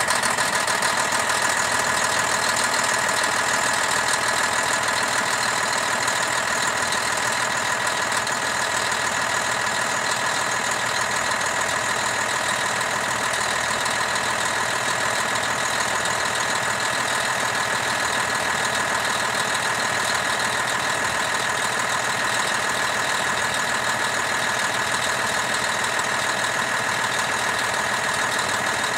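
2006 Detroit Diesel Series 60 12.7-litre inline-six turbodiesel idling steadily, heard up close with the hood open.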